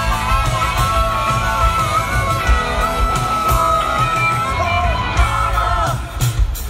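Live rock band playing through a festival PA, heard from the crowd: electric guitars, bass and drums with singing, the low end heavy and boomy.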